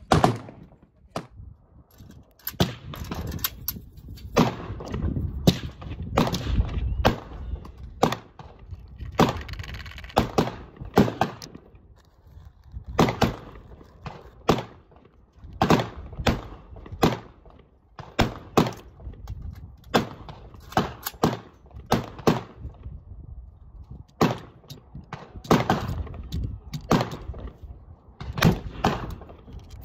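Irregular sharp knocks and clicks, one or two a second through most of the stretch, from reloading a Traditions Kentucky percussion pistol held muzzle-up: metal and wood taps as the ramrod and hand work at the muzzle. A low rumble runs underneath.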